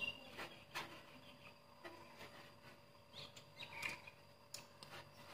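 Faint eating sounds: a spoon clicking lightly against bowls a number of times, with a few faint high chirps in the background.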